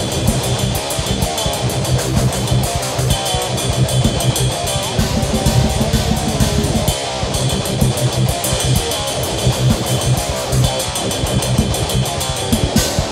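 Rock music with guitar and a fast drum beat.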